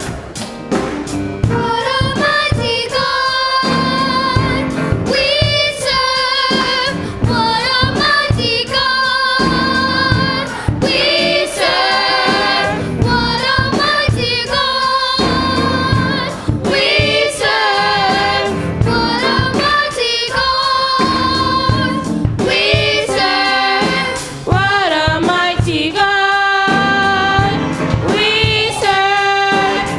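Gospel song: voices singing held, wavering notes over a band with a steady drum beat.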